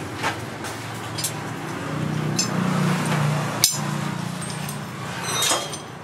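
A few scattered light metallic clinks from blacksmith's tongs and scrap steel being handled, over a steady low hum.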